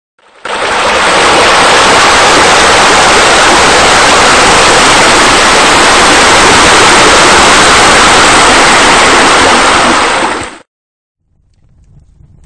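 Loud, steady rushing water like a waterfall pouring, starting about half a second in and cutting off abruptly near the end.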